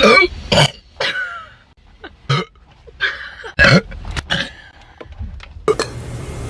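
Young woman burping: a series of short burps, about a second apart.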